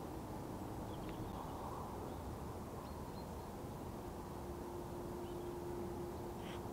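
Steady low hum of distant road traffic with a few faint bird chirps over it. A steady tone joins the hum about four seconds in.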